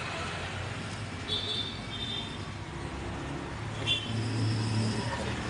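A vehicle engine running steadily as a low hum that grows louder about four seconds in. Short high-pitched tones sound twice about a second and a half in and once more just before four seconds.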